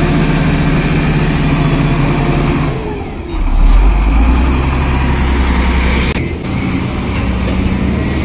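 Hydraulic excavator's diesel engine running under working load. The pitch dips and falls about three seconds in, then a heavier, deeper surge follows for a couple of seconds, with another brief dip just after six seconds.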